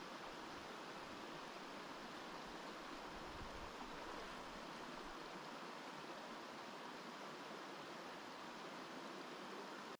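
Mountain river flowing: a steady, even rush of water.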